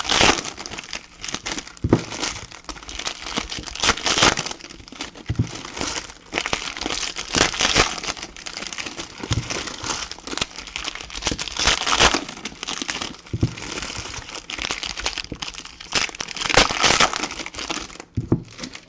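Trading-card pack wrappers crinkling as packs are opened by hand, in irregular bursts of crinkling that ease off about a second before the end.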